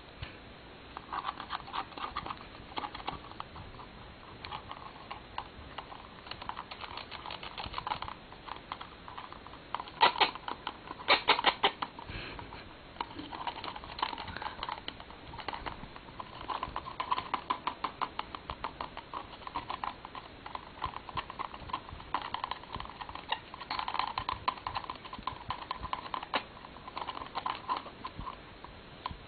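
Solomons cockatoo making rapid, irregular runs of dry clicking and tapping sounds, with a louder flurry of clicks partway through.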